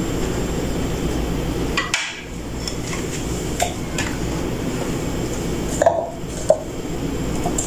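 A knife chopping bread slices on a plastic tray, and bread pieces going into a plastic blender jar: scattered light clicks and knocks, loudest about six seconds in, over a steady low hum.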